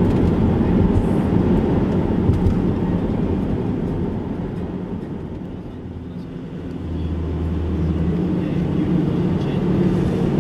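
Car running on the road, heard from inside the cabin: a steady low rumble of engine and tyre noise that eases off about halfway through, then builds again.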